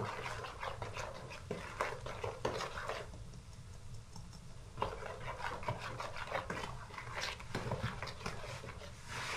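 A metal spoon stirring flour into wet yeast batter in a plastic basin, with irregular scraping and clicking against the bowl. There is a quieter lull in the middle as more flour is poured in.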